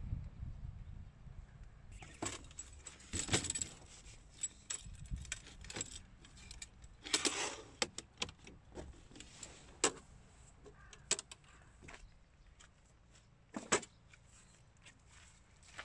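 Light metallic clicks, clinks and rattles from an aluminium folding camp table being folded and handled: scattered sharp clicks, a longer rattle about halfway through and single sharp clicks near the end. A low rumble comes before the clicks start, about two seconds in.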